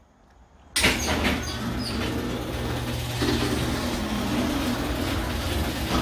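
All-O-Matic chain-drive garage door opener starting up about a second in and then running steadily as it lowers the door: a constant motor hum with chain and trolley noise. It sounds normal, with no stall or hum-without-moving.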